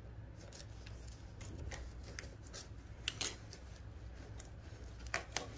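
Faint small clicks and light rustling of tweezers and paper stabilizer as yarn jammed at the chainstitch needle is worked free by hand, over a steady low hum. The sharpest click comes about three seconds in.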